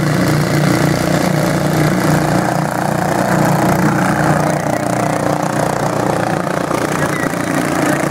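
Engines of several racing lawn tractors running together as the pack laps the track, a steady drone.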